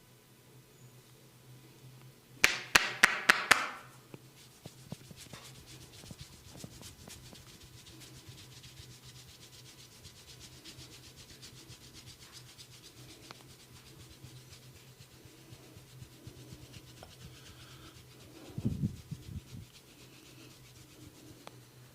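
Barber's hands rubbing and scratching through hair on a scalp, with a quick run of five sharp smacks a few seconds in and a few dull thumps near the end, over a steady low hum.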